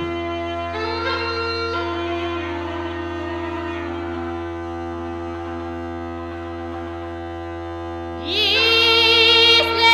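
Background music of sustained, held notes. About eight seconds in, a louder melody with strong vibrato slides in.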